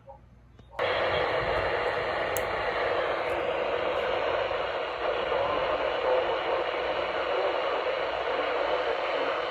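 Radio static: a steady hiss that switches on suddenly about a second in and holds at an even level.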